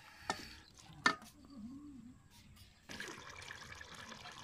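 Wooden spatula stirring potatoes through watery tomato masala in an aluminium pot, with two sharp knocks of the spatula against the pot, the louder one about a second in. From about three seconds in comes a steady hiss of the potato curry simmering.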